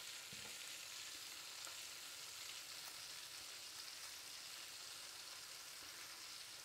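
Fresh bratwurst sausages frying in rendered bacon fat in a stainless steel pot: a steady, faint sizzle.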